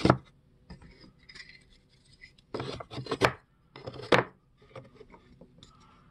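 Wooden hive-frame end bars knocking and scraping as they are set by hand into the slots of a wooden frame-assembly jig, with a few sharp wooden clacks at the start, around three seconds in and about four seconds in.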